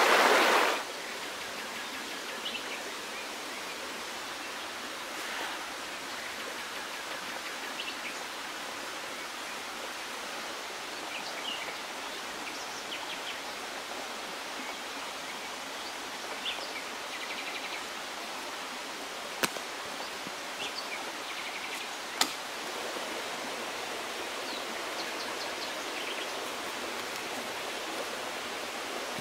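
Steady rushing of a river, with faint bird chirps and two sharp clicks about three seconds apart past the middle.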